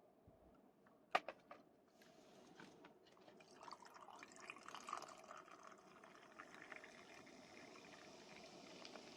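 Faint pouring or trickling of liquid, after a sharp click about a second in.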